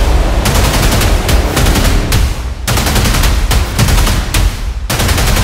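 Sound-effect gunfire: rapid machine-gun-style bursts of shots, fired in runs with short breaks between them, over a deep low rumble.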